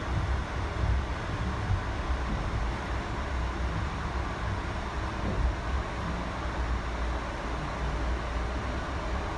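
Steady low rumble and hiss inside an Amtrak Horizon passenger car.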